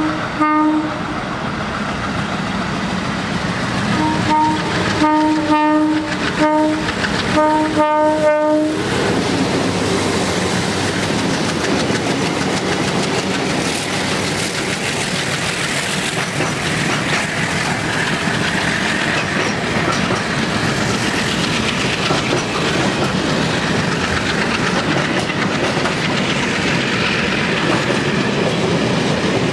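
Approaching MLW diesel locomotive sounding its multi-note air horn: one blast right at the start, then a run of short blasts between about 4 and 9 seconds in. After that the locomotives pass and a long freight train rolls by, with steady rumble, wheel clatter over rail joints and rushing air.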